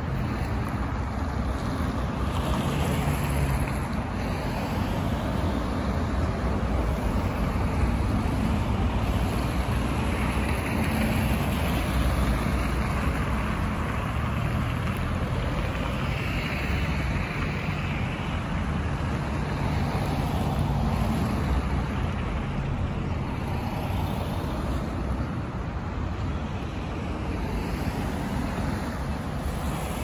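Road traffic on a suburban street: cars passing one after another, their engine and tyre noise swelling and fading every few seconds over a steady low rumble.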